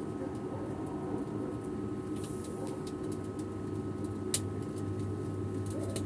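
Microwave oven running while it heats food: a steady hum with a few light clicks, one sharper about two-thirds of the way through.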